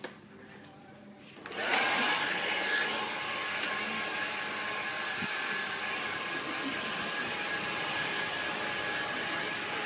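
Handheld hair dryer switched on about a second and a half in. It spins up briefly, then runs steadily: a rushing airflow with a high motor whine, blowing on short hair.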